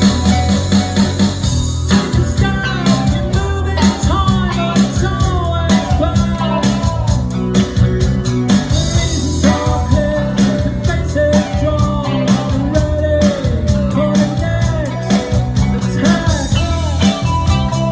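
Loud rock music with electric guitar, bass and drums keeping a steady beat; a sung or lead melody comes in about two seconds in.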